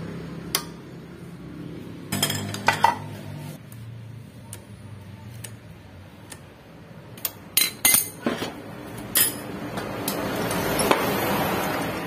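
Metal tools clinking and knocking against the clutch of a Honda Vario 150 scooter's CVT as a wrench and clutch-holder tool tighten the clutch nut: a few sharp knocks about two seconds in and a cluster around eight seconds, over a low steady hum.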